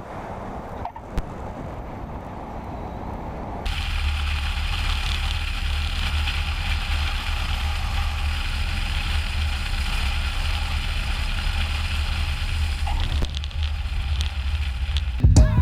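Light single-engine propeller airplane's piston engine running steadily, heard inside the cockpit with airflow noise. About four seconds in it becomes abruptly louder, with a strong low drone.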